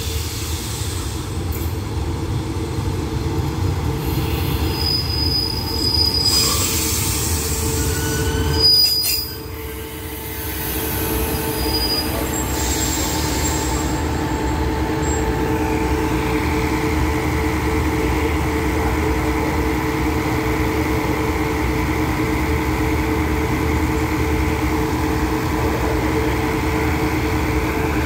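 Diesel railcar train pulling into a station and slowing past at close range. Its wheels and brakes squeal, with a few short high squeals in the first half, over the steady hum of its underfloor diesel engines and rolling noise.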